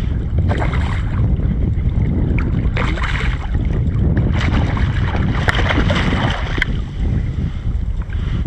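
Strong wind buffeting the microphone in a steady low rumble, with choppy waves splashing and slapping against the kayak's hull in several bursts.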